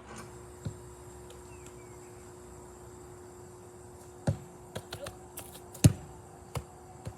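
Several short sharp knocks and taps, the loudest about six seconds in, over a faint steady hum that stops at that loudest knock.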